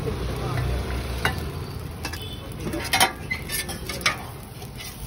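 Food sizzling on a flat steel griddle at a street stall, with a few sharp clinks of a metal utensil on the steel, the loudest about three seconds in.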